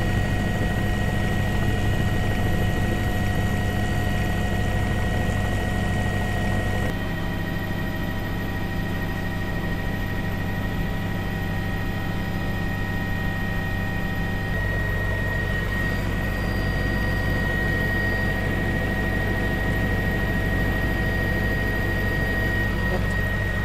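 News helicopter's cabin noise: a steady rotor and engine drone with a steady high whine. Its tone shifts abruptly twice, about 7 seconds in and again near the middle.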